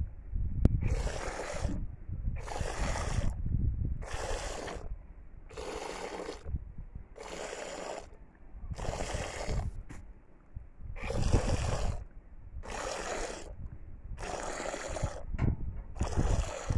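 Goat's milk squirting by hand into a plastic bowl of foamy milk, each squeeze a short hissing splash, about one every second and a half.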